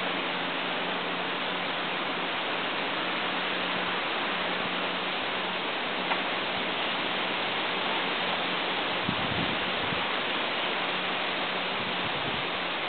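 A steady, even hiss with a faint low hum under it, and a light click about six seconds in.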